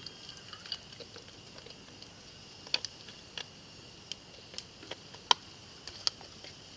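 Irregular light clicks and taps, a dozen or so, the sharpest about a third and three quarters of the way through, over a faint steady high hiss.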